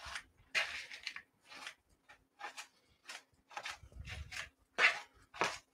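Kitchen utensils scraping and rubbing: a string of a dozen or so short, separate strokes with brief gaps between them.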